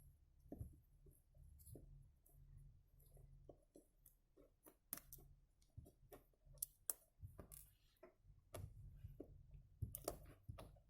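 Faint, irregular clicks and ticks of a small Phillips screwdriver working the screws out of a smartphone's plastic back housing, with a denser run of clicks near the end.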